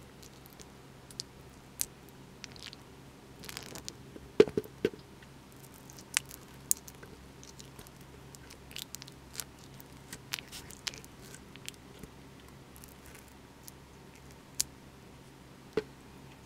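Old honeycomb and wax being scraped off a wooden hive frame with a flat scraper, giving irregular crunching and sticky squishing, with a few sharper knocks about four seconds in.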